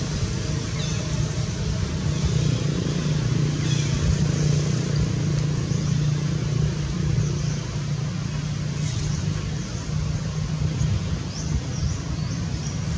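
A steady low motor hum, with a few short high chirps over it.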